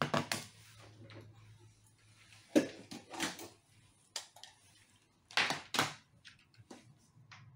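Several knocks and clicks from handling the reassembled iMac as it is connected to power, with a low steady hum for the first two seconds or so.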